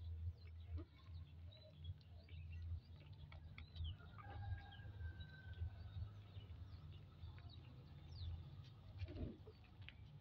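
Newborn puppies suckling at their mother, with faint high squeaks and soft clicks over a low steady hum. There is one longer squeak about four seconds in.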